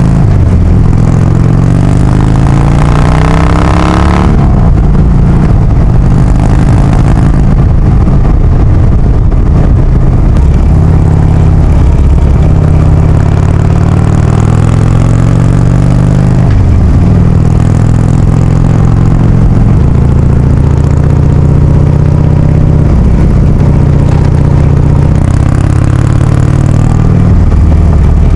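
2016 Harley-Davidson FXDL Dyna Low Rider's air-cooled V-twin, fitted with Big Radius 2-into-2 exhaust pipes, running under way on the road. Its pitch climbs in the first few seconds under acceleration, then dips and climbs again around the middle and near the end as the revs change.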